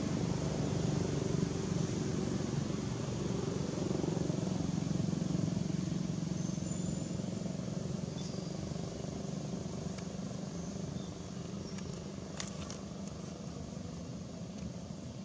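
Steady low hum of a motor vehicle's engine, slowly fading, with a few faint clicks near the end.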